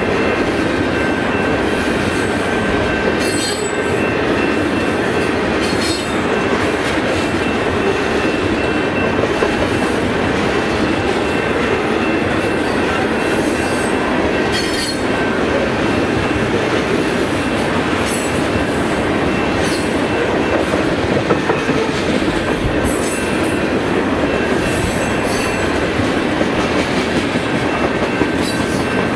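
Steady rumble and clatter of a freight train's tank cars rolling past on steel wheels, with a thin, steady squeal from the wheels and now and then a sharp click over the rail joints.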